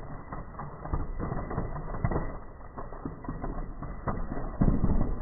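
Diet Pepsi and Mentos geyser spraying, with soda droplets spattering back down in an irregular crackle of small clicks that gets louder near the end.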